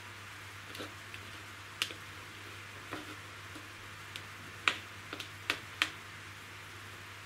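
Sphagnum moss being pressed into a thin clear plastic orchid pot around the roots, giving a scatter of light clicks and crackles, several close together in the second half, over a steady faint hiss.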